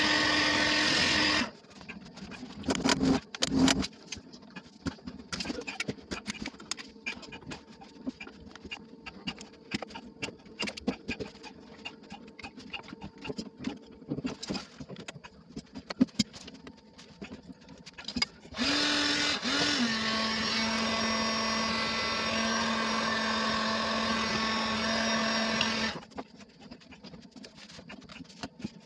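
Electric heat gun blowing with a steady fan hum, switched off about a second and a half in. Then come scattered clicks, scrapes and a few sharp knocks of hand tools working the heated PVC fitting. The heat gun runs again for about seven seconds near two-thirds of the way through, its hum dropping a step in pitch just after it starts.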